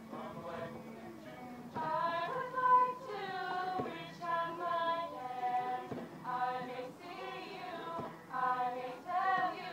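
A small group of mostly female voices singing a slow song together in long held notes and short phrases. The singing grows louder about two seconds in.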